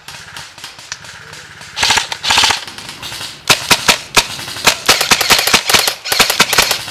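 Airsoft guns firing in rapid full-auto bursts, sharp cracks coming about ten a second, starting about two seconds in.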